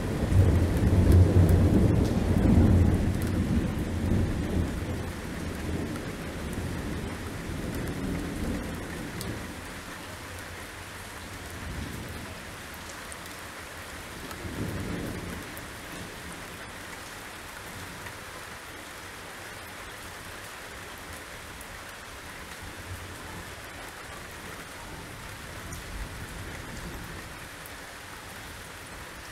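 Torrential rain falling steadily, with a loud rolling rumble of thunder in the first few seconds that dies away over several seconds. A shorter, fainter rumble of thunder comes about halfway through.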